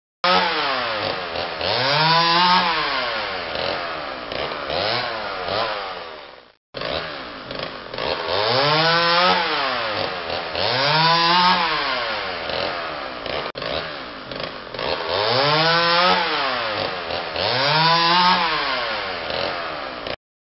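Two-stroke chainsaw cutting gorse brush, its engine revving up and dropping back in a repeating cycle about every two seconds as the throttle is worked through the cuts. The sound breaks off briefly about six and a half seconds in, then resumes.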